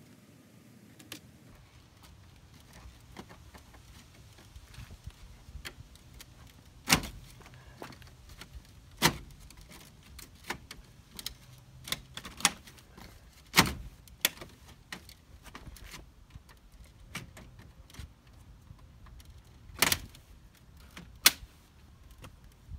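Plastic front grille of a B7 Volkswagen Passat being worked loose and pulled out: a string of irregular sharp plastic clicks and knocks as its slide-in retaining clips let go, with about six loud clacks among many faint ones.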